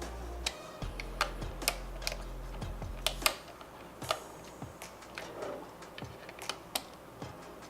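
Small, irregular plastic clicks and taps from handling a Bose A20 headset's control module and its cable plug while the new cable is seated. A low hum sits under the first three seconds, then stops.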